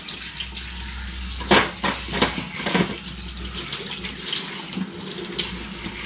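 Kitchen tap running into a stainless steel sink while hands rinse bleached fish jaws under the stream, with a few sharper splashes between about one and a half and three seconds in.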